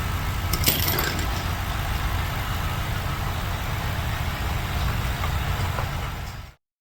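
Car engine idling steadily with no audible misfire, after a cylinder 2 misfire was cured with a new intake manifold, gasket and spark plug. A brief click comes just under a second in, and the sound cuts off suddenly near the end.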